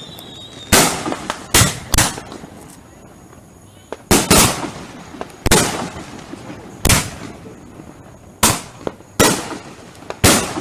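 Fireworks going off in an irregular string of about ten loud, sharp bangs, some in quick pairs, spaced roughly half a second to a second and a half apart, each followed by a brief crackling tail.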